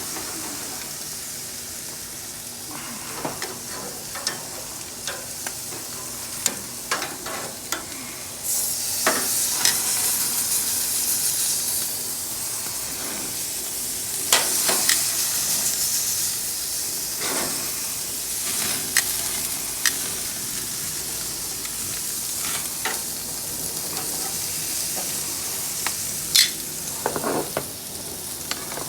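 Steak sizzling on a hot grill, a steady frying hiss that swells louder twice, about eight seconds in and again around the middle. Scattered short clicks and taps run through it.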